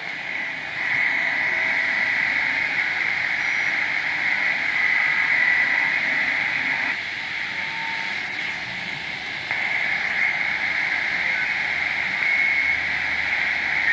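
Homebrew BITX HF transceiver's speaker giving steady band hiss, strongest in the upper voice range, with a few faint tones, while it listens on the 30 m FT8 frequency. The hiss drops about seven seconds in, as the radio is switched to the 20 m band, and returns about two and a half seconds later.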